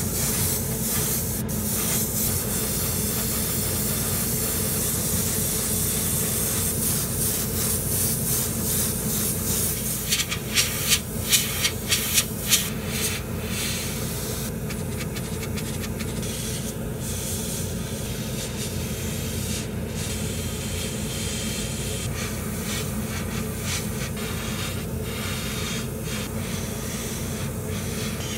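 Airbrush spraying paint onto small plastic model parts in a steady hiss, with a run of short louder bursts about ten to thirteen seconds in, over a steady low hum.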